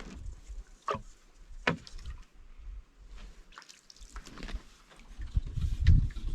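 Canoe being paddled: sharp knocks of the paddle against the hull and water sounds, with heavier low rumbling near the end.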